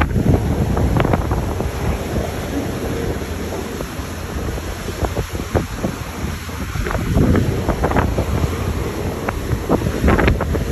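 Strong wind buffeting the microphone in irregular gusts, over the rush of choppy sea and a boat's churning wake.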